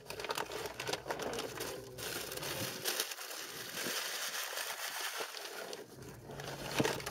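Paper sandwich wrapping crinkling and rustling as it is handled: a dense run of small crackles.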